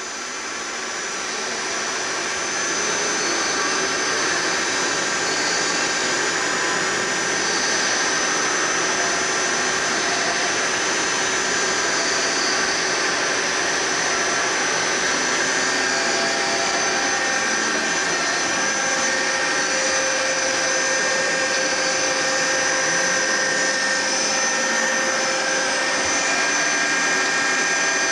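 Loud, steady mechanical whir with several steady high tones running through it. It cuts in suddenly, swells over the first couple of seconds, then holds level.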